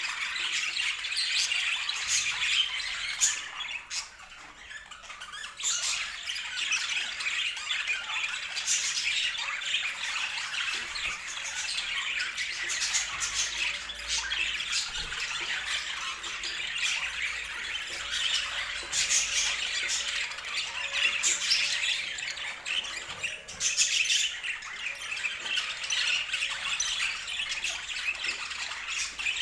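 A flock of budgerigars chattering, chirping and squawking without pause, with a short lull about four seconds in.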